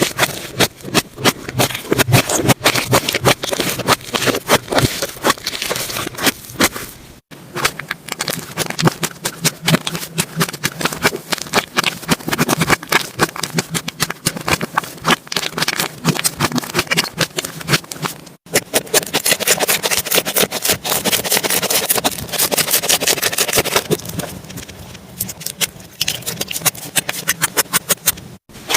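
Slime being squeezed and worked by hand: a dense stream of wet crackling pops and clicks, broken by abrupt cuts about 7 and 18 seconds in.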